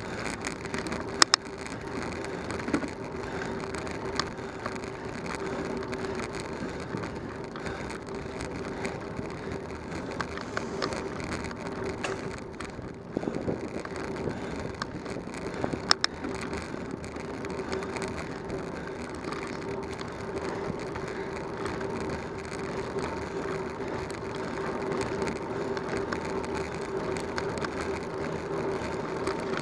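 Bicycle rolling along a paved road: steady tyre and wind noise with a low hum, broken by a few sharp knocks, the loudest about a second in and about sixteen seconds in.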